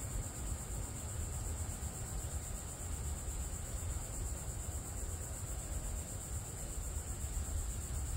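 Steady high-pitched insect chorus buzzing without a break, over a low rumble.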